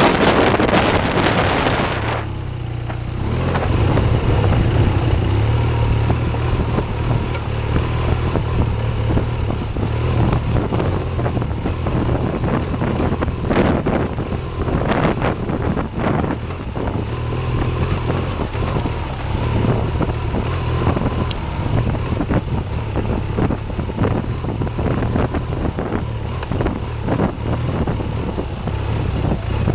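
BMW R 1200 GS boxer-twin engine running steadily under way on a dirt road, with wind buffeting the microphone for the first couple of seconds and a few short knocks around the middle.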